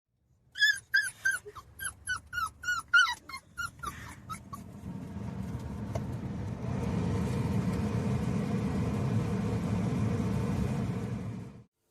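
A dog giving a quick run of about a dozen short, high-pitched yips and whimpers over some four seconds. A steady low rumbling noise follows.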